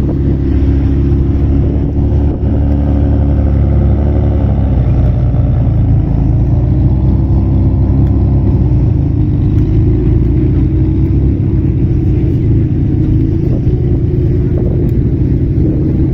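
A Ferrari's engine idling loud and steady, its pitch shifting slightly in the first few seconds.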